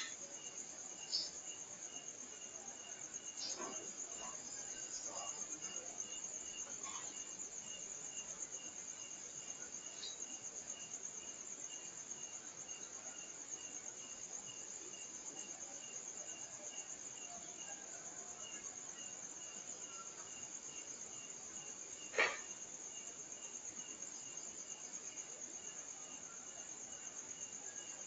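Crickets trilling steadily and high, with a slower, evenly pulsing insect call beneath. A few sharp knocks break through near the start, and a louder single knock comes about 22 seconds in.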